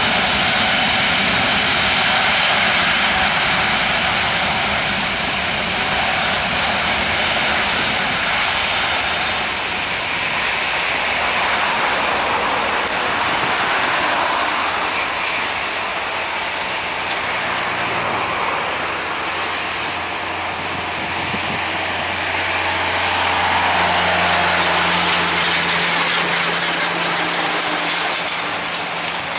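Airbus A330-941 (A330neo) jetliner's Rolls-Royce Trent 7000 turbofans at takeoff power: a loud, steady jet roar as the aircraft accelerates down the runway away from the listener on its takeoff roll.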